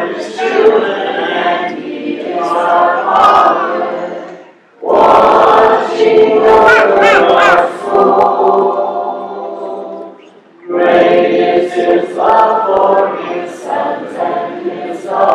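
Small congregation singing a hymn a cappella, with no instruments, in three phrases with a brief pause for breath between each.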